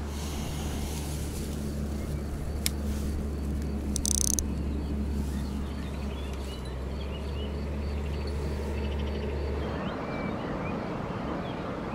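Open-air riverbank ambience under a steady low drone like a distant engine, which stops about ten seconds in. Faint bird chirps and a regular insect ticking run above it, with a short high buzz about four seconds in.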